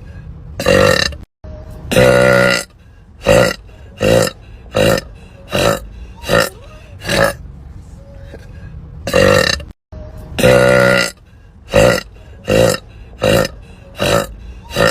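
A woman burping over and over: about fifteen loud, pitched burps, mostly short, with a few longer drawn-out ones.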